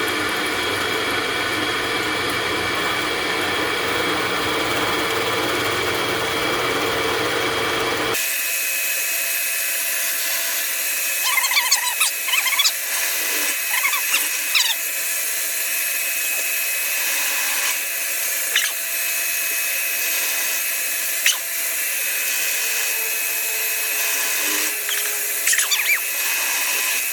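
Drill press running steadily while a 1-inch Forstner bit bores holes in elm boards, with short high squeaks as the bit cuts, mostly in the middle and near the end. The low hum under it drops out abruptly about eight seconds in.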